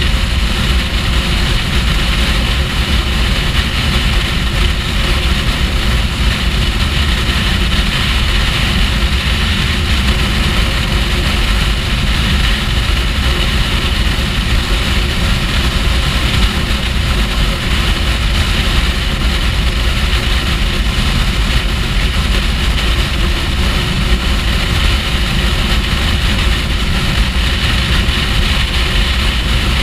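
Kawasaki Ninja H2's supercharged inline-four running at a steady motorway cruise, under heavy wind rush on the bike-mounted microphone. The level stays even throughout, with no change of throttle.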